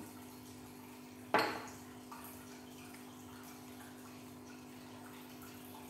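A single sharp clink of kitchenware about a second and a half in, ringing briefly, over a steady low hum.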